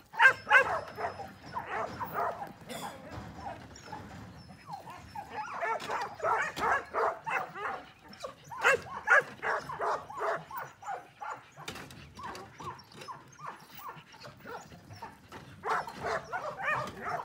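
Dog barking and yipping: runs of quick, high calls in several bursts of a few seconds each, with short lulls between.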